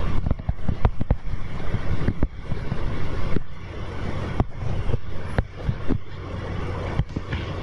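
Steady low hum and background noise with irregular sharp clicks and knocks, several a second at first and fewer after about three and a half seconds.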